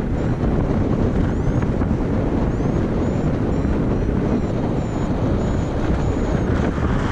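Rushing wind noise on the microphone from airflow during paraglider flight. It is a steady, loud buffeting, strongest in the low end.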